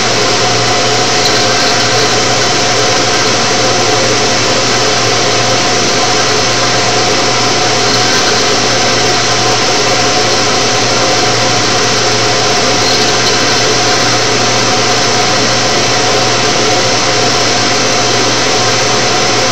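CNC router spindle running with a small engraving bit cutting grooves into a plexiglass sheet: a steady, unbroken machine noise with a constant hum under it.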